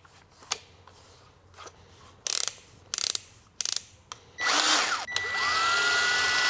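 Ryobi 18V cordless drill driver: a few ratcheting clicks as the front of the drill is twisted by hand, then about five seconds in, after a short burst, the motor spins up and runs steadily with a whine.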